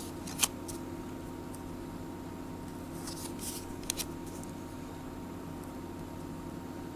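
1991 Fleer Ultra baseball cards being flipped one by one off the front of a hand-held stack. There is a sharp card snap about half a second in, then soft slides and two quick ticks near the middle, over a steady background hum.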